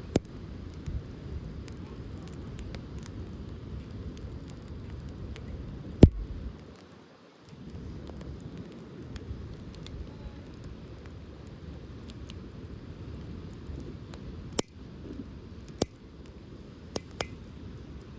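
Campfire burning in a portable fire pit: a steady low rumble with scattered sharp pops of burning wood, the loudest about six seconds in and a few more near the end.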